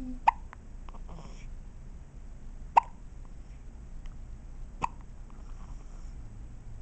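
Newborn baby hiccupping: three short, sharp hiccups about two seconds apart.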